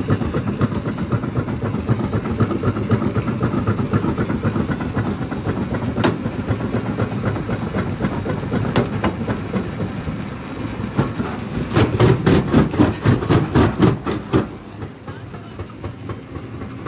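Stone jaw crusher running, rocks rattling and cracking between the jaws in a continuous, rhythmic clatter. About twelve seconds in comes a run of loud, rapid knocks, and near the end the clatter grows quieter.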